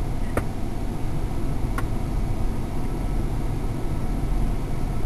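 Steady low rumble of the truck running, heard inside the cabin, with two light clicks about a second and a half apart.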